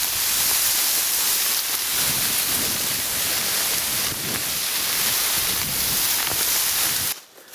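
Dry reed stalks rustling and swishing steadily as a horse pushes through a dense reed bed, a constant hiss of brushing stems. It cuts off suddenly near the end.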